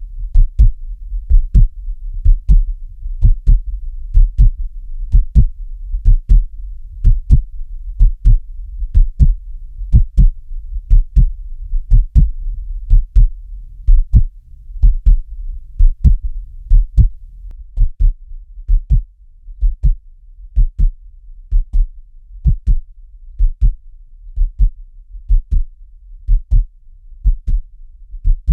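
Heartbeat sound: a steady, even double thump (lub-dub) about once a second, low in pitch, over a low continuous hum.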